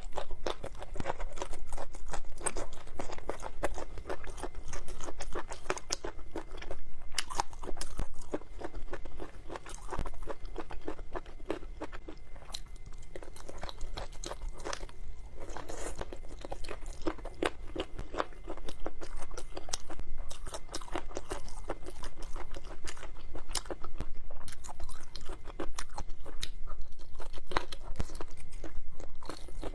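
A person chewing and crunching food: a dense, continuous run of crisp crunches and clicks.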